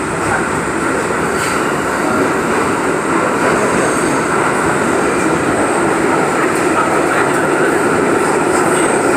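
R62A subway car running at speed through the tunnel, heard from inside the car: a steady loud rumble of wheels on rail with a faint steady whine above it, growing a little louder.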